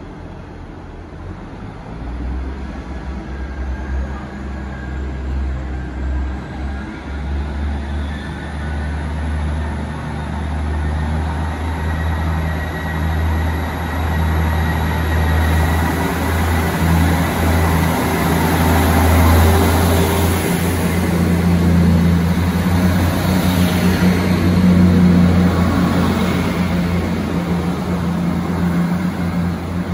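Great Western Railway Class 158 diesel multiple unit approaching along the platform and running past, its diesel engines making a steady low drone. The drone grows louder, is loudest about two-thirds of the way through, and eases slightly near the end. A faint thin whine climbs in pitch over the first ten seconds or so.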